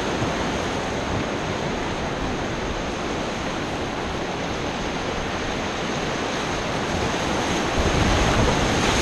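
Whitewater rapids rushing around an inflatable raft as it runs through them, a steady rush that grows louder and heavier about eight seconds in.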